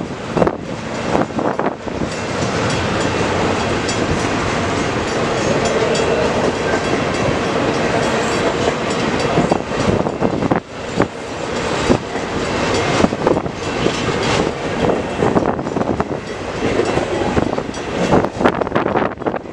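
Cars of a CN intermodal freight train rolling past: a loud, steady rumble of steel wheels on the rails, broken by repeated sharp clacks from the wheels.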